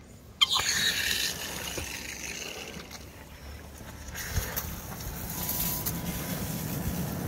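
Sprinkler valve opened by turning its solenoid by hand: a click about half a second in, then water rushing through with a hiss that fades over a couple of seconds. Later a lower, steady rush of water grows, escaping from a broken pipe under the garden bed.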